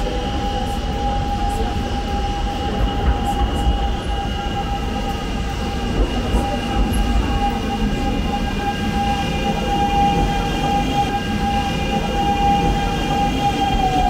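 Electric commuter train pulling into a station, with a low rumble and a steady high-pitched squeal as it brakes. Near the end the squeal falls in pitch as the train slows.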